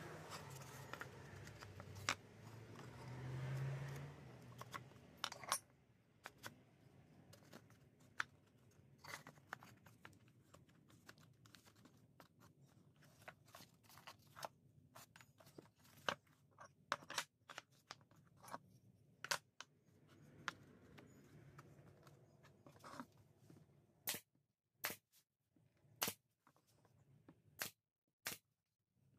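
Birch plywood drawer box parts being handled and fitted together on a workbench: light taps, scrapes and clicks of wood on wood. Near the end comes a string of sharp, separate clicks about half a second to a second apart.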